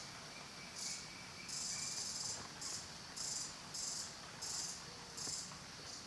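Insects chirping in short, high-pitched buzzing bursts that repeat irregularly, roughly one or two a second.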